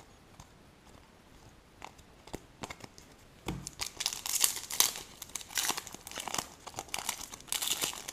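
A foil trading-card pack being torn open and crinkled in the hands. The crackling starts about three and a half seconds in, after a few faint clicks, and goes on through the rest.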